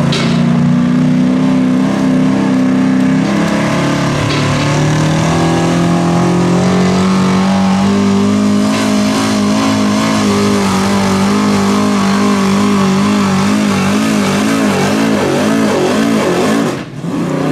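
Chevrolet pickup's engine at full throttle pulling a weight-transfer sled: its pitch drops about three seconds in, climbs slowly and holds high and wavering, then the throttle is let off sharply near the end, as the pull ends.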